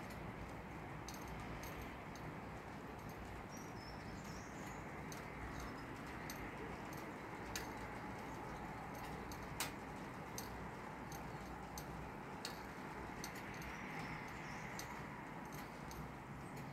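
Rain shower: a steady, soft hiss of rain, with irregular sharp ticks of drops striking something close by, roughly one a second and one louder tick a little past the middle.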